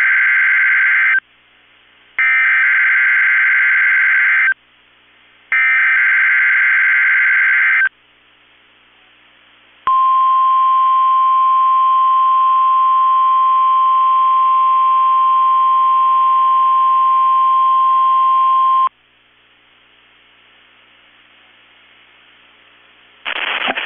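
NOAA Weather Radio EAS test signal: three short bursts of screechy, warbling SAME header data, each about two seconds long, then the steady single-pitch 1050 Hz warning alarm tone held for about nine seconds and cut off sharply. A voice announcement starts right at the end.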